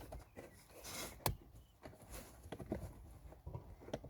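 Plastic interior trim being handled under a car dashboard: faint rustling and light taps, with one sharp click about a second in.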